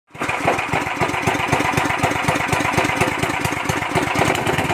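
Fuji Star FJ-200 6.5 hp, 196 cc single-cylinder four-stroke gasoline engine running steadily at low speed, with an even, rapid beat of firing strokes.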